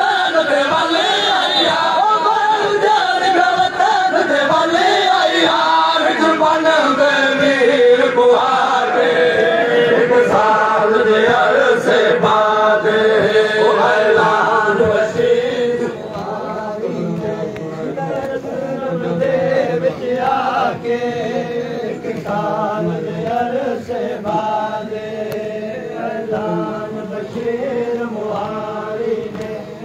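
Male voices chanting a noha, a Shia mourning lament, loudly and without a break. The chant drops somewhat in loudness about halfway through.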